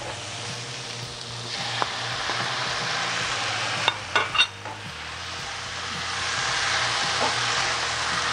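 Chicken slices and vegetables sizzling and being stir-fried in a hot wok. The sizzle swells as the chicken goes in and grows louder again near the end, with a few sharp clicks of the plastic spoon and spatula against the pan about four seconds in.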